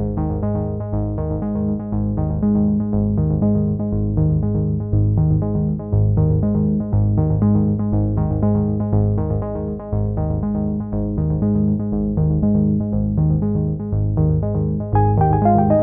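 Background music played on synthesizer and keyboard, with chords over a steady, even bass pulse; a brighter, higher melody comes in near the end.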